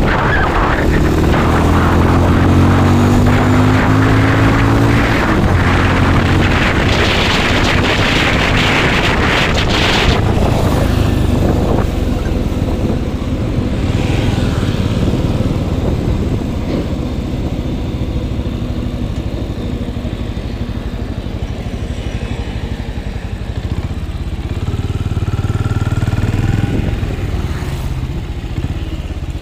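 Benelli Imperiale 400's single-cylinder engine running as the bike is ridden, heard from the rider's seat. It is revved in first gear at the start and its pitch sinks slowly over the first few seconds, with a rushing hiss for a few seconds after that. It runs quieter through the middle and picks up again near the end.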